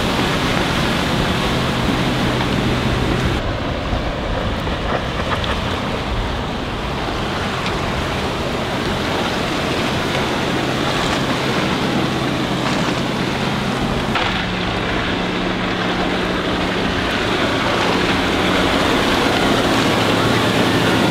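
Four Winns H200 bowrider's MerCruiser 4.3-litre MPI V6 sterndrive running at speed on the plane, its hull hissing through the water, with wind on the microphone. The engine note steps up in pitch about two-thirds of the way through and again near the end.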